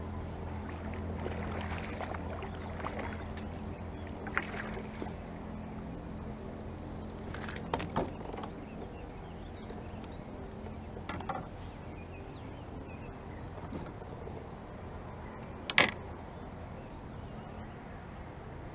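A fish being played and landed into a kayak: scattered sharp knocks and clatters of gear and fish against the kayak, over a low steady hum that fades out within the first few seconds. The loudest knock comes near the end.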